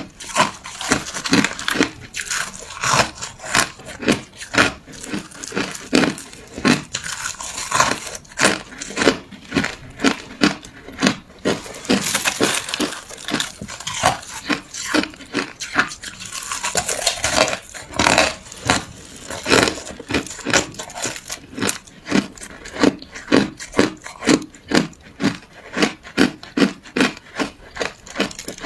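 Ice being bitten and chewed close to the microphone: a steady run of sharp, crisp crunches, about one or two a second, as the ice cracks between the teeth.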